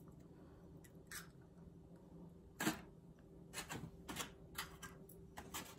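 Light clicks and taps of an eggshell and kitchen things being handled beside a frying pan, one sharper click about two and a half seconds in and a run of softer taps near the end, over a low steady hum.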